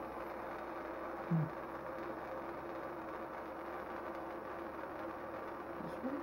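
Steady machine hum with a few held tones, with one brief, louder low-pitched sound about a second and a half in.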